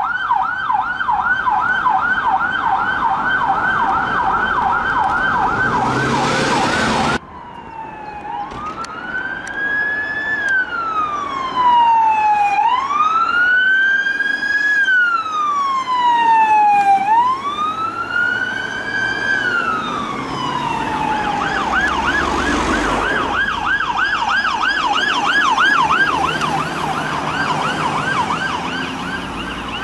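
Police vehicle electronic sirens: a fast yelp that cuts off abruptly about seven seconds in, then a slow wail rising and falling every few seconds, which switches back to a fast yelp around twenty seconds in.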